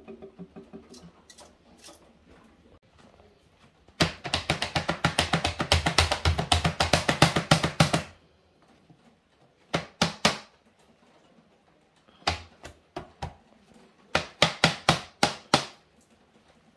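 Hands patting washed asparagus dry through paper towel on a board: quick runs of soft thumps, several a second. One long run of about four seconds comes first, then a short burst and a final few seconds of pats.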